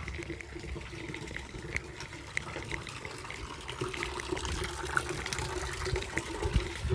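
Water running steadily, with many scattered small clicks and a steady low hum beneath.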